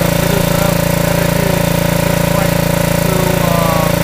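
Small engine running steadily at a constant speed, a fast even beat under a steady hum. Its exhaust heats a boiler that drives a small single-flywheel steam engine, which turns a generator by belt alongside.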